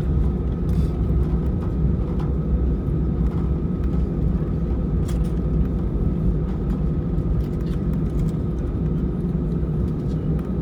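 Steady cabin rumble of an Airbus A320 taxiing, its engines at low thrust, with a faint steady whine over the low drone.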